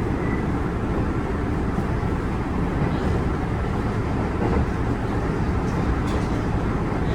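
Kintetsu 7020 series electric train running between stations, heard from inside the car: a steady rumble of wheels on rail and car body.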